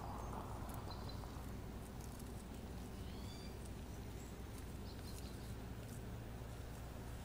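Quiet outdoor ambience: a steady low rumble with faint scattered rustling and a few short bird chirps, the clearest about three seconds in.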